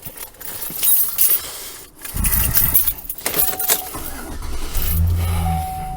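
Ignition keys jangling as the key is put in and turned in a 2005 Chevy Silverado. About two seconds in a low rumble comes up, and a steady high tone sounds briefly and then holds near the end.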